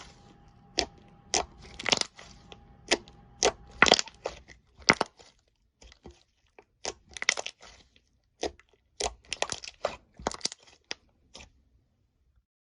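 Slime being pressed and squeezed by hand, giving a run of sharp crackles and pops, some single and some in quick clusters, stopping about a second before the end.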